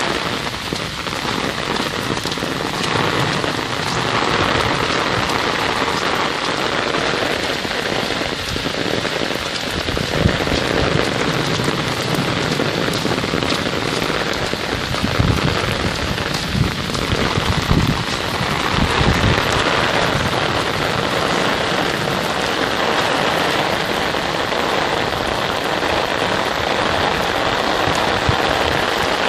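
Torrential rain pouring down on a road, a loud, dense, unbroken hiss. A few low thumps sound in the middle of it.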